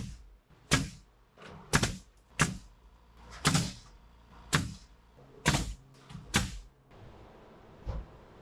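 Hammering: a run of sharp hammer blows at an uneven pace of roughly one a second, some lighter than others, stopping after about six and a half seconds, with one light tap near the end.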